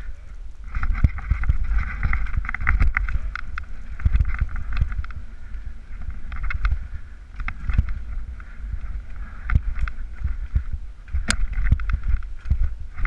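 Mountain bike clattering along a rough forest trail: irregular knocks and rattles over a steady low rumble of wind and riding noise on the camera microphone.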